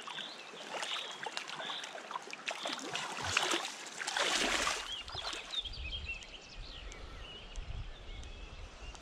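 Water splashing and sloshing as hands push a released chub off in shallow river water, with the biggest splash about four seconds in. After that, a steady low rumble with faint bird chirps.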